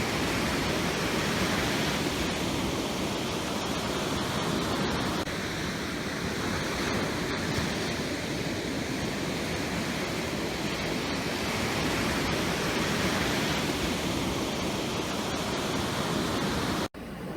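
Ocean waves washing in, a steady rush of surf with gentle swells in loudness. The sound cuts out for an instant near the end.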